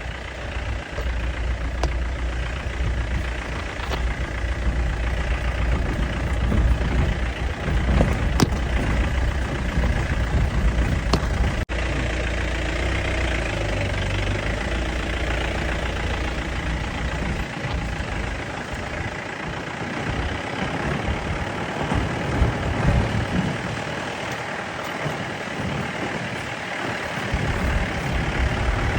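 Safari jeep's engine running with a steady low rumble that turns more uneven later on.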